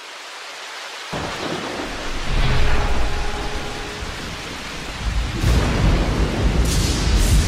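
Stormy weather: strong wind buffeting the microphone, with rain. It starts about a second in and swells in heavy gusts twice.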